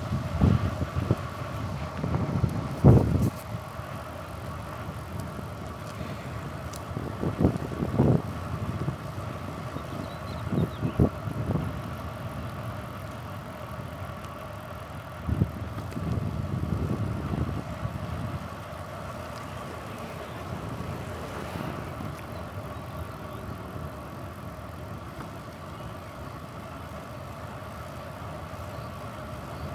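Sound of riding a bicycle: a steady whirring hum runs throughout, with wind buffeting the microphone in low rumbling gusts several times, heaviest at the start.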